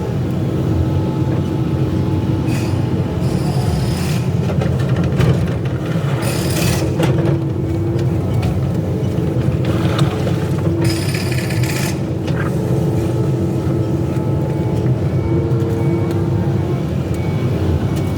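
Excavator's diesel engine running steadily, with a steady whine over it and brief high scraping noises now and then as the machine works.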